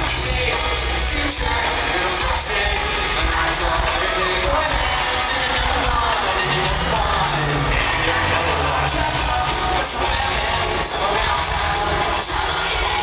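Live pop-rock band playing through an arena PA, with electric guitars, drums and a singer, recorded from the stands.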